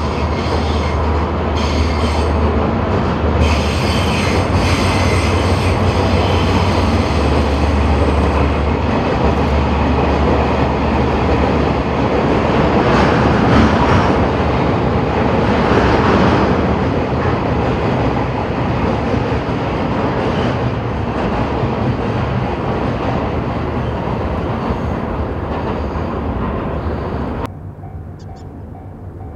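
A freight train hauled by a DD51 twin-engine diesel-hydraulic locomotive rolls past: a steady rumble of wagon wheels on the track, with a low drone through roughly the first nine seconds. Near the end the sound drops suddenly to a much quieter background.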